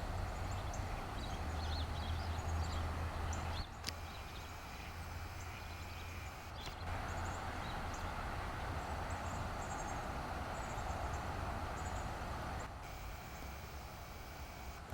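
Outdoor background noise: a steady low rumble with faint, short, high bird chirps now and then and a few brief clicks.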